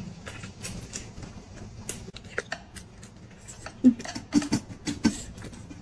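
Close-miked eating sounds: someone chewing boiled dumplings, with wet mouth clicks and small taps of chopsticks against the bowl. The sounds get busier after about four seconds, with short low mouth noises among the clicks.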